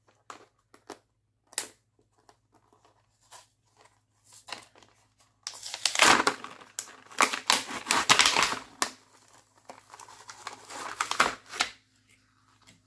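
Plastic blister packaging of a pen and highlighter set being opened by hand. Scattered light clicks for the first few seconds, then loud crinkling and tearing from about halfway, with a second shorter stretch near the end.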